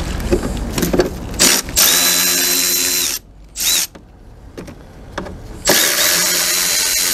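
Cordless drill-driver running twice in short runs of about a second and a half, each with a steady motor whine, driving out the two Torx screws that hold a truck's licence plate frame. Some clicks of the tool and frame being handled come first.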